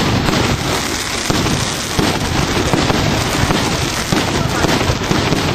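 Aerial fireworks going off in quick succession: shells bursting with bangs and crackle, one after another without a break.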